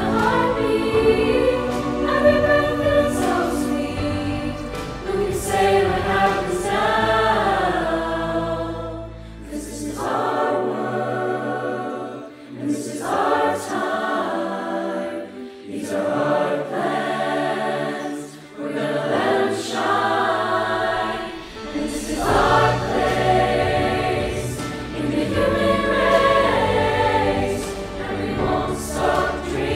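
Mixed-voice high school choir singing, a virtual choir mixed from singers recorded separately at home. The low accompaniment drops away for about ten seconds in the middle, leaving the voices more exposed, then comes back.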